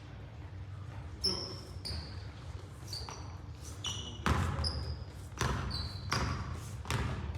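Basketball play on a gym court: a ball bouncing on the floor about seven times at an uneven pace, with short high squeaks of sneakers.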